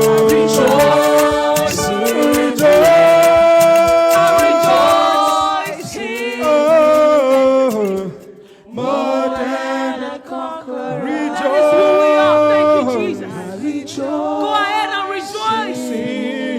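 Worship singing: several voices hold long notes and glide between them in harmony, with a brief pause about eight seconds in.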